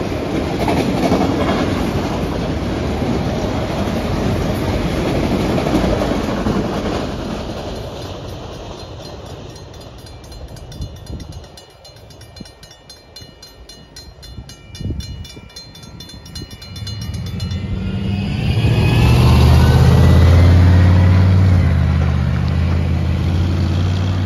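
Norfolk Southern autorack freight cars rolling past a grade crossing with steady wheel-on-rail noise, which fades out about eight seconds in, leaving the crossing bell ringing rapidly until it stops after about seventeen seconds. Then the waiting road traffic drives across the tracks, a car engine running close by and loudest about twenty seconds in.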